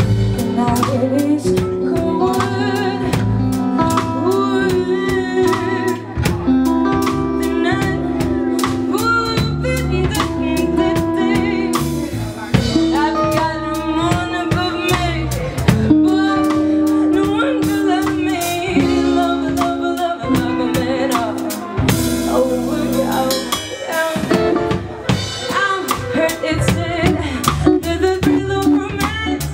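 Live band performing: a woman singing into a microphone over electric guitar and a drum kit, with regular snare and cymbal hits keeping the beat.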